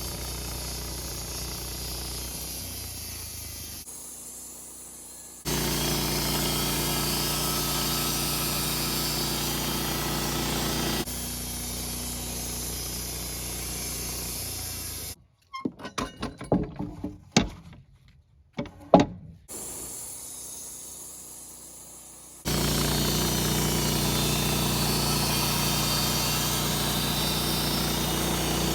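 Wood-Mizer LT15 band sawmill running steadily, twice growing much louder for about five or six seconds as the band blade cuts through a small Douglas fir log. In the middle there are a few seconds of sharp, separate knocks with quiet between them.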